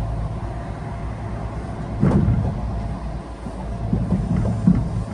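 Running noise of a Kintetsu 1620-series electric train, heard from inside the car: a steady low rumble and hum, with a loud thump about two seconds in and a few more thumps near the end.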